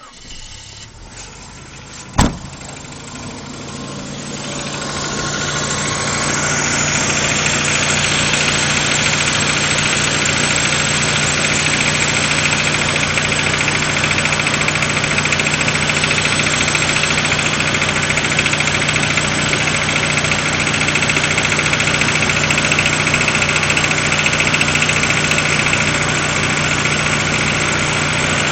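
Suzuki G16A 1.6-litre 16-valve four-cylinder engine idling cold after a frosty night, with a steady knock from the top end that the owner takes, though not for certain, for cylinder-head knock. A single sharp click comes about two seconds in, then the engine grows louder over the next few seconds and holds steady.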